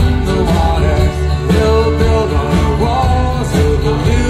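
Indie folk-rock band playing live through a concert PA: strummed acoustic guitar, drums and electric guitar in a full, steady groove.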